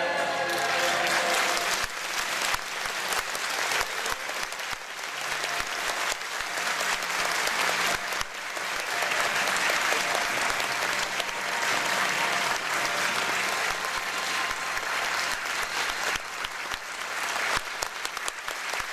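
Audience applauding in a hall, a dense steady clapping. The choir's last sung note fades out in the first second.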